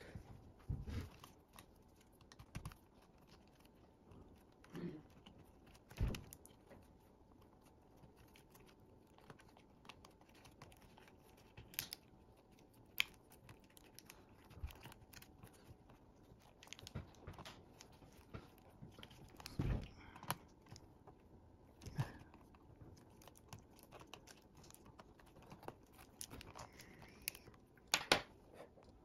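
Irregular small clicks, taps and rustles of hands handling the exposed internals and chassis of an opened Lenovo ThinkPad X240 laptop, with a few louder knocks scattered through.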